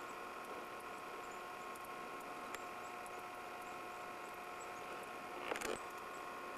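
A faint, steady electrical hum with a few fixed tones, the camcorder's own recording noise. A small click comes about two and a half seconds in, and a short crackling rustle of handling comes about five and a half seconds in.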